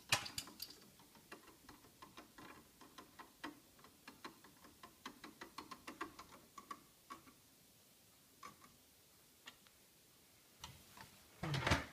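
Faint, irregular small clicks and ticks of screws being threaded by hand into the plastic lamp housing of a DLP projection TV, thinning out after about seven seconds, with a louder burst of handling clicks near the end.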